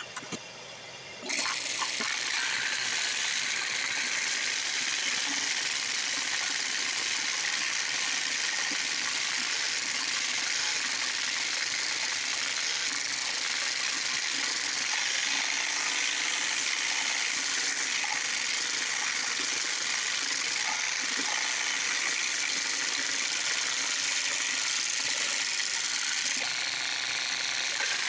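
Drum sander with its shop vac dust collection switching on about a second in, then running with a steady, loud airy hiss.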